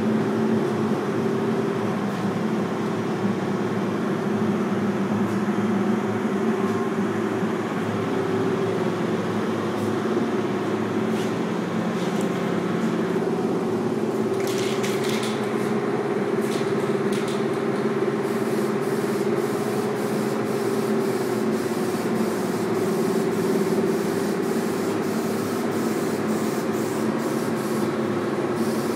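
Spray-painting hiss over a steady machine hum, with a brief louder burst of spray about halfway through and a run of regular faint ticks in the second half.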